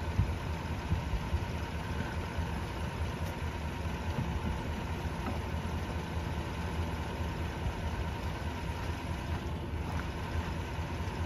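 Pickup truck engine idling steadily, with a faint steady whine on top.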